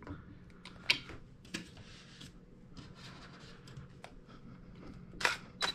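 A few faint scattered clicks and handling sounds, then near the end two sharp clacks less than half a second apart: a Canon 5D Mark II DSLR's shutter firing for a shot.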